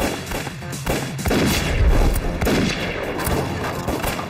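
Film battle sound effects: repeated gunfire with a heavy, low boom about two seconds in, over a music score.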